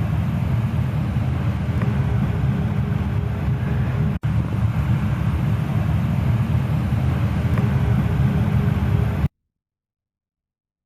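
Goodman GMNT080-4 gas furnace running with a steady low rumble. All sound stops abruptly near the end.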